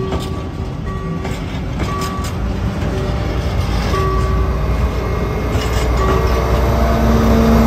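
Empty container flat wagons rolling past on the rails, with short squeals repeating every second or so. Near the end the rumble of the MaK G 1700 BB shunting diesel locomotive grows louder as it comes closer.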